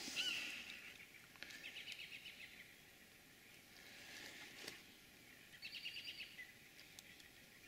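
Faint wild bird calls: a quick pulsed trill about a second and a half in, and another around six seconds, over light outdoor background noise.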